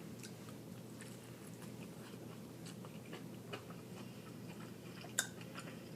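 A person chewing fried chicken, soft wet mouth clicks and smacks close to the microphone, with one sharper click about five seconds in.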